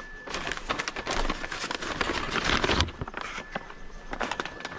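Rustling and crinkling handling noise, dense for about the first two and a half seconds and then thinning to scattered crackles.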